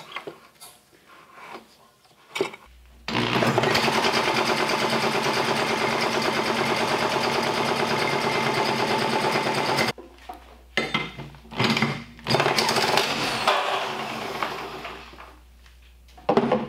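Small single-cylinder engine with a cut-open crankcase starting up about three seconds in and running fast and steady, then cutting out abruptly about ten seconds in as its JB Weld-repaired connecting rod breaks apart. A few short bursts of noise follow, fading away.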